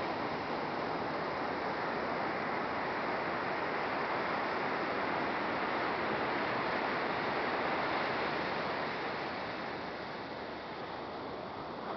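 Ocean surf breaking and washing up a sandy beach, a steady rushing that eases a little near the end.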